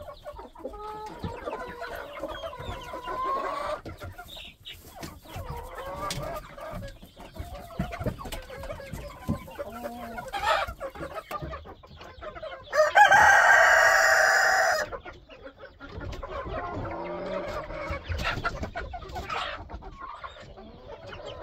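Chickens clucking on and off, with one loud rooster crow of about two seconds a little past the middle.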